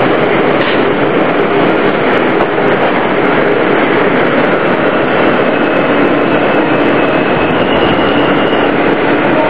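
R160A-2 subway car in motion, heard from inside the car: a loud, steady rush of wheels on rail and running gear. A faint high whine rises above it in the second half.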